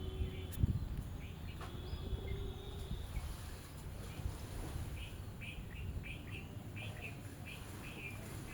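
Small birds chirping: a run of short, quick chirps repeating about twice a second in the second half, over a low background rumble. Two long steady tones sound in the first three seconds.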